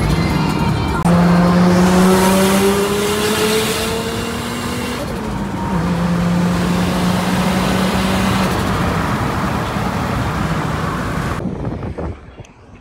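The turbocharged Nissan Patrol's TB48 straight-six petrol engine is pulling under load, with road and wind rush. Its pitch steps up about a second in and climbs steadily for several seconds, then drops at a gear change and holds steady. The sound cuts off suddenly near the end.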